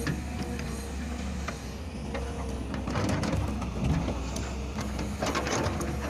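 Kobelco hydraulic excavator running steadily while its bucket teeth scrape and drag through rocky soil, with clatters of stones around three seconds in and again near the end.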